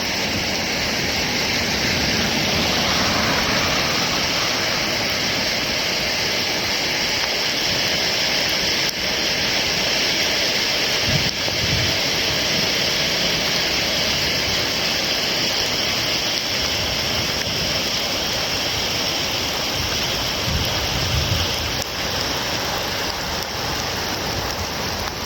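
Heavy rain pouring steadily, an even continuous hiss of water.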